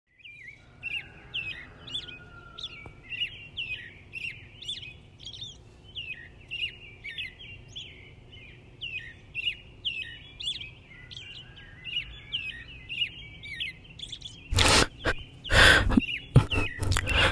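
Small birds chirping over and over, about two short chirps a second, over a faint low background hum. Near the end a few loud scuffing sounds break in.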